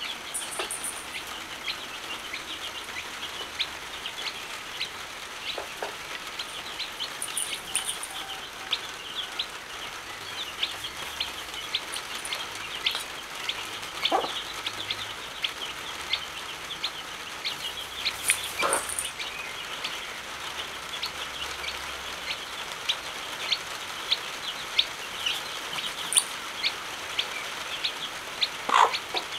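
A chick peeping in quick, short, high chirps over and over, with a few low clucks from the mother hen, over a steady hiss of heavy rain.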